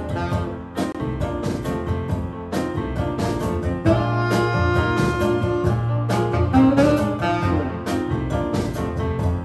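Small jazz band playing live: saxophone leading over keyboard, double bass and hand percussion.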